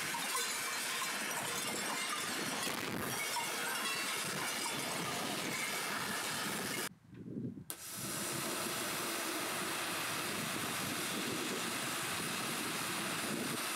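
Pyrotechnic ground fountains ('volcanoes') hissing steadily as they spray sparks. The hiss drops out briefly about seven seconds in, then resumes just as steady.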